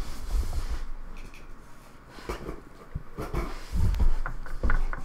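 Small cardboard box being cut open with a utility knife: scraping and rustling of the blade and cardboard, with a few short knocks as the box is handled in the second half.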